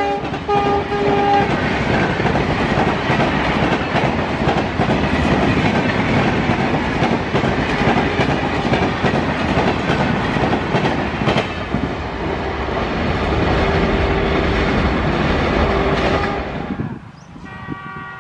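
A train horn cuts off about a second in. Then long-distance passenger coaches pass at speed, a loud rush of air and wheel noise with the clickety-clack of wheels over rail joints. Near the end the sound drops away and an approaching WDP4D diesel locomotive sounds its horn.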